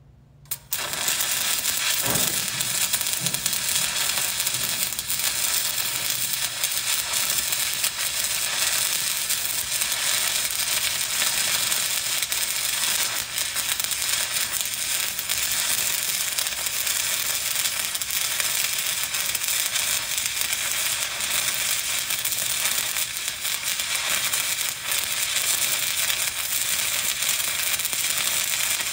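Shielded metal arc (stick) welding arc struck about a second in, then crackling and sizzling steadily as the electrode is run up a vertical plate with a weave.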